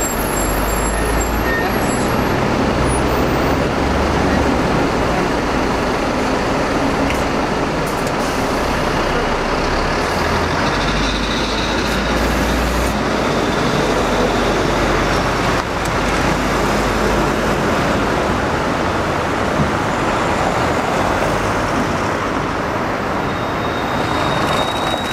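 Steady city street traffic noise, with the low rumble of a bus engine running close by.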